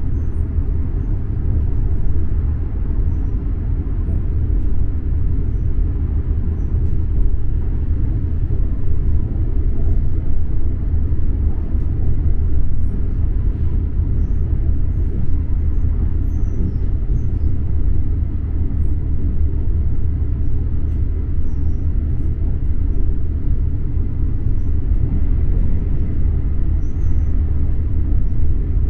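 Steady low rumble of a Trenitalia double-decker train running at speed, heard from inside the carriage, with faint scattered light ticks.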